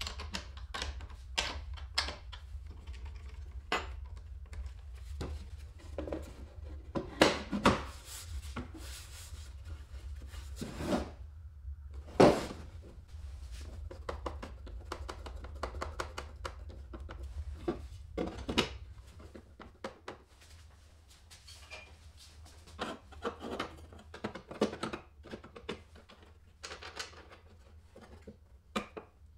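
Scattered clicks, knocks and rubbing from hands working on an electric hand planer set in a wooden jig: a wrench on the fittings, and wood and metal parts being handled and set in place. Two knocks in the first half are much louder than the rest. The planer itself is not running.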